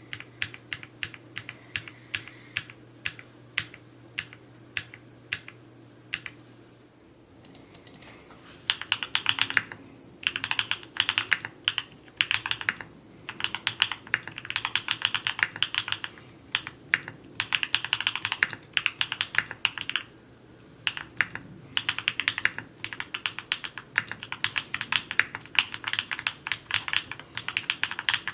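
Typing on a Neo65 Cu custom mechanical keyboard: a steady stream of keystrokes in runs of words. About seven seconds in, after a brief pause, the typing turns faster and louder.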